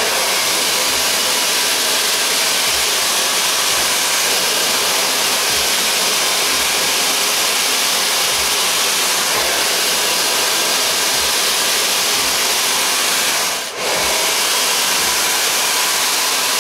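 Hand-held hair dryer fitted with a flat concentrator nozzle, blowing at full airflow: a loud, steady rush of air that cuts out for a moment near the end and comes straight back.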